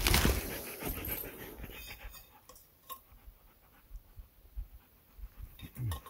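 A dog panting, after a loud bump right at the start; it fades after about two seconds, leaving faint rustles.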